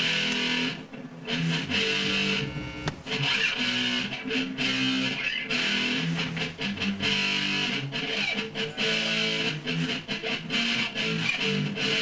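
Electric guitar played through an amplifier: a loose run of notes and chords, as a guitarist warms up while the studio is being set up, with a short pause about two and a half seconds in.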